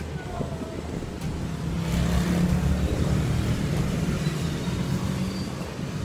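Road traffic: a motor vehicle's engine and tyres passing close by, growing louder about two seconds in and easing off near the end.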